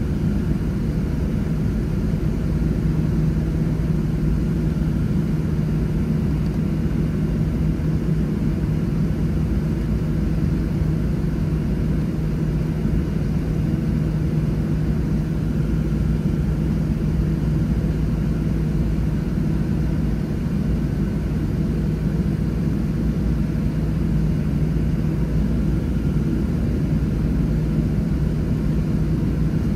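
Steady cabin drone of a Boeing 737-700 airliner on the ground during pushback: a constant low rumble with a steady hum that does not rise or fall.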